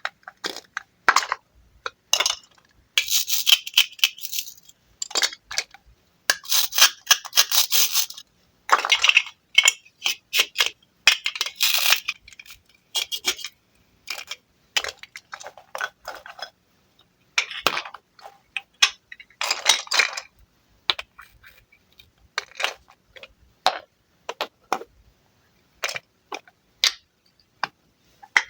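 Wooden toy fruit being cut with a knife and handled: a string of sharp clicks and taps of wooden pieces, broken by several short rasping scrapes as pieces are cut apart.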